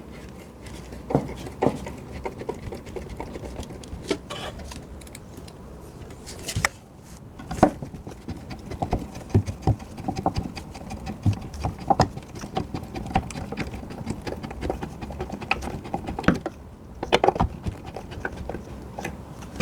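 Screws being driven back in to fix a new solid-wood seat board to a chair: an irregular run of clicks and knocks from the tool, screws and wood.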